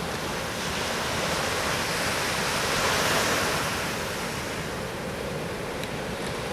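Pacific Ocean surf washing onto the shore below, a steady rush of breaking waves that swells about three seconds in and then eases off.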